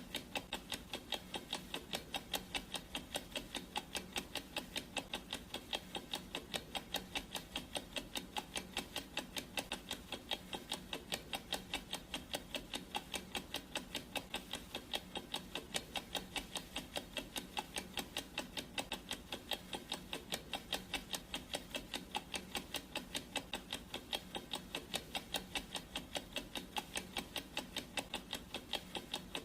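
Clock ticking sound effect of a countdown timer: steady, evenly spaced ticks that keep an even beat.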